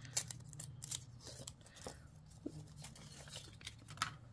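Thin white protective wrapping being pulled off a new GoPro HERO9 Black action camera by hand: irregular crackling and rustling with a few sharp snaps.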